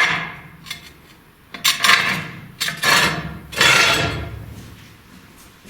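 A mason's trowel scraping and clinking, three strokes about a second apart, each fading quickly.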